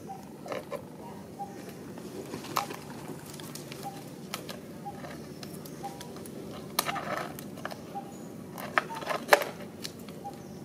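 Thin clear plastic cup crackling and clattering on concrete as a baby monkey pushes and bats it about: scattered sharp crackles, loudest in clusters about 7 and 9 seconds in.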